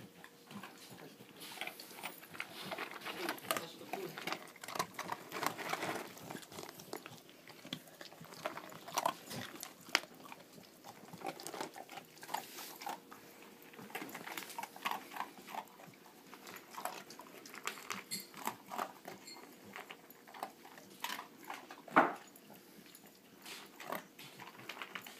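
Two dogs, a Doberman pinscher and an American Staffordshire terrier, eating dry kibble from one bowl: a steady, irregular run of crunches and clicks from chewing and from muzzles in the food. One sharp knock stands out near the end.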